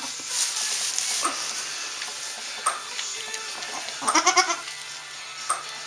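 A goat gives one short, quavering bleat about four seconds in. Faint rustles and ticks of straw bedding come before it.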